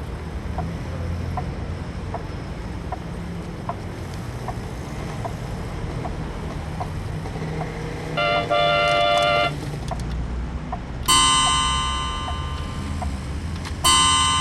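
Clock ticking slowly and evenly, about one tick every three-quarters of a second, over a low rumble. A short horn-like tone sounds about eight seconds in, and near the end two struck chimes ring out, each dying away slowly.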